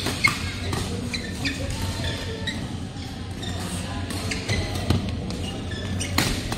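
Badminton rally: several sharp smacks of racket strings hitting the shuttlecock, the loudest near the end. Between them, short squeaks of court shoes on the mat, over a steady low hum of the hall.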